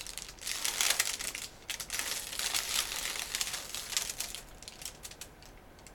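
Paper wrapper of a sterile 4x4 gauze pad being peeled open by hand, crinkling with irregular crackles that are busiest in the first few seconds and thin out near the end.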